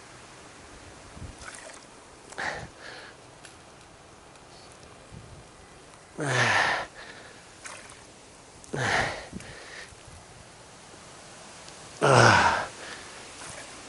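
Water being scooped out and tipped away, three loud splashes about three seconds apart, each with a falling gurgle.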